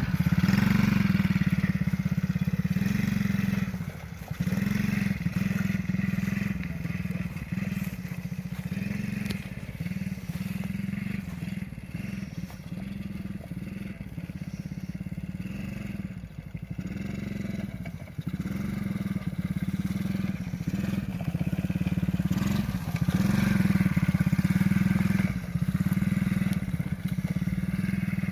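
Small 50cc children's ATV engine running as it is ridden, its sound dipping and picking back up several times as the throttle eases off and opens again.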